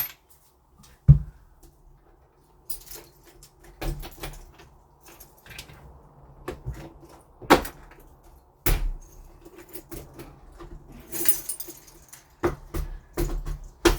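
Keys jangling, with metal clicks and knocks, as a key is turned in the old door lock cylinder to align its cam so the cylinder can be worked out. There is a dull thump about a second in and several sharp clicks in the second half.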